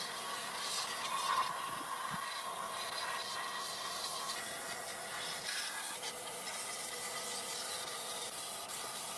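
Steady abrasive rubbing on rusty metal, as in sanding or scrubbing off rust, with a faint steady whine underneath.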